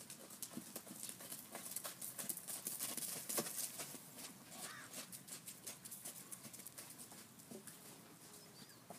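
Hoofbeats of a horse cantering on arena sand, growing louder as it passes close by about three seconds in, then fading as it moves away.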